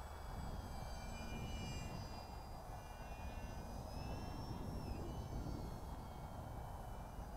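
Model airplane's motor and propeller whining, its pitch sliding up and down as the plane flies about, over a low steady rumble.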